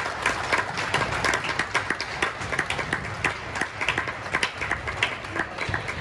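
Irregular sharp taps and claps, several a second, echoing in a large badminton hall: rackets hitting shuttlecocks and shoes on the wooden courts, with some scattered clapping.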